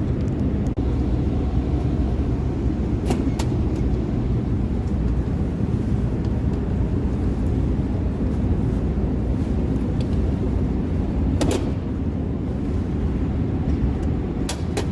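A steady low machine hum with a few sharp clicks or knocks, about three seconds in, at about eleven and a half seconds, and near the end.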